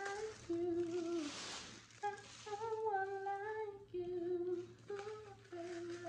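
A woman humming a slow tune in short phrases of held notes, with white tissue paper rustling in her hands as she unwraps it.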